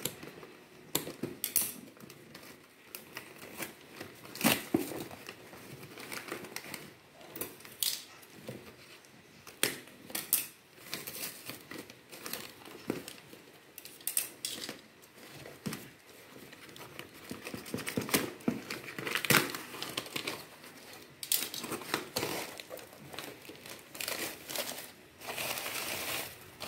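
Scissors cutting through packing tape on a cardboard box, then tape and cardboard flaps being torn open and newspaper packing crumpled and pulled out by hand: irregular ripping, rustling and crinkling.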